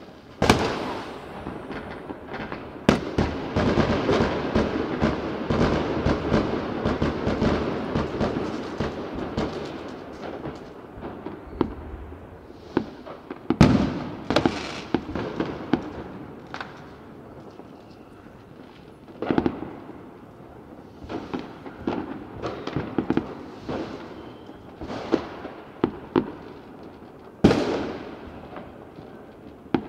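Fireworks and firecrackers going off: a dense run of bangs and crackling for the first ten seconds or so, then scattered bangs, with a loud one about halfway through and another near the end.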